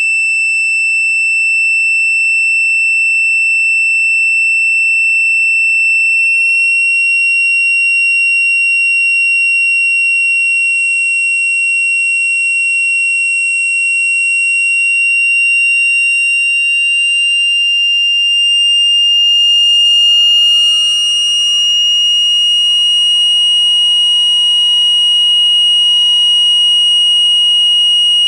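Electronic wild-boar deterrent sound: a loud, steady high-pitched tone. From about seven seconds in, fainter tones slide slowly up and down over it.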